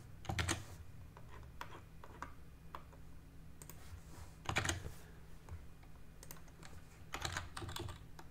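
Computer keyboard typing: short clusters of key presses and single taps with pauses between, the loudest burst about halfway through and another flurry near the end.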